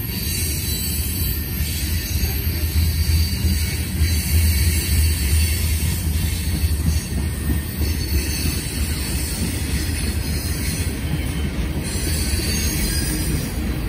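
Passing freight train of covered hopper cars and tank cars rolling by on the rails, a continuous low rumble of wheels and cars.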